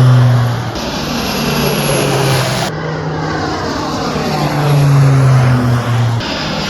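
Propeller aircraft engines running with a steady low drone and a sweeping rise and fall as the aircraft moves. The sound changes abruptly a few times.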